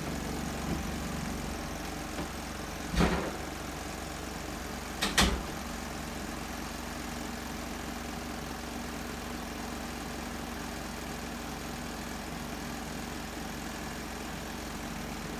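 Costway mini twin-tub washing machine running with a steady hum, its spin tub still turning while the wash tub drains. Two sharp knocks come about three and five seconds in, the second one doubled.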